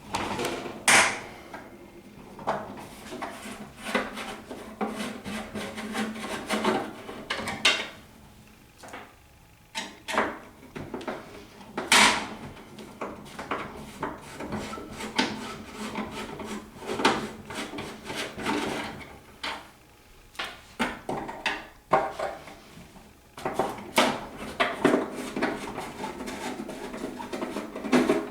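Flat-head screwdriver undoing the screws on top of a vending tower: repeated scraping and rubbing turns broken by many clicks and sharp knocks, the loudest near the start and about halfway through.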